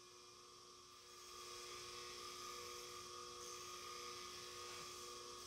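Stanley bench grinder running with a faint steady hum, a chisel held lightly against its white grinding wheel; a soft hiss rises about a second in as the steel is ground.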